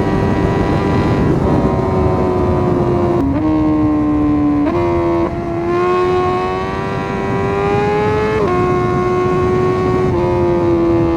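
Honda CBR1000RR-R Fireblade's inline-four engine running hard at motorway speed, with wind rushing past. Its pitch steps down sharply about three seconds in, jumps back up a second and a half later, climbs slowly, then drops sharply again near the end.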